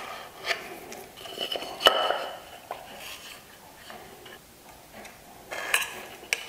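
A small steel square and pencil clicking and tapping against a wooden board as a baseline is drawn around it with the pencil. Scattered light ticks, the sharpest about two seconds in and a quick cluster near the end.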